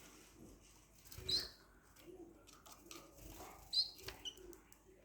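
Small caged finches giving short, sharp chirps, twice, about two and a half seconds apart, with a few faint ticks and rustles between.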